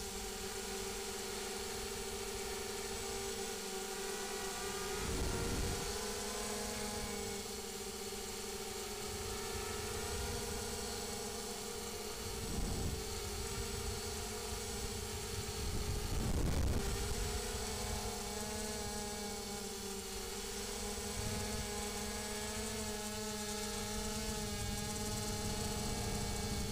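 FPV multirotor's brushless motors and propellers whining steadily, heard from the action camera mounted on the craft, with the pitch of the tones shifting slightly as the throttle changes. Three brief rushes of low noise come about five, thirteen and sixteen seconds in.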